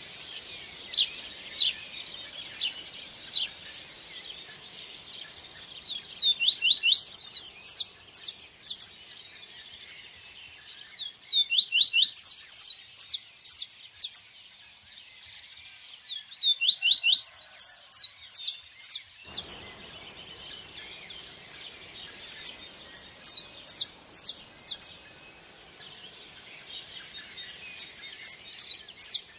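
A songbird singing a repeated phrase of quick, high, falling chirps about every five seconds, with single chirps in between. Under it runs a faint rush of stream water that fades away for several seconds and cuts back in suddenly about two-thirds of the way through.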